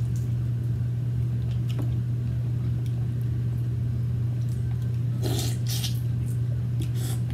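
Hands peeling cooked shrimp and handling mussel shells, giving a few light clicks and a short, louder wet sound about five seconds in, over a steady low hum.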